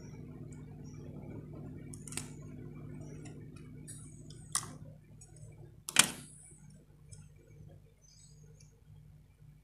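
A few sharp clicks and snaps as scissors cut the wires of a toy RC car's circuit board and its plastic parts are handled, the loudest about six seconds in. Under them runs a low steady hum that fades out about halfway through.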